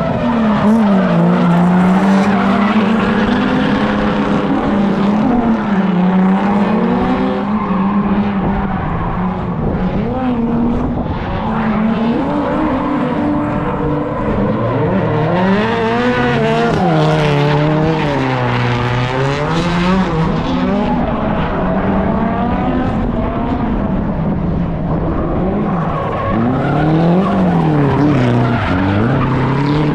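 Drift car engines revving hard, the pitch swinging up and down every second or two as the throttle is worked through the slides, over continuous tyre noise.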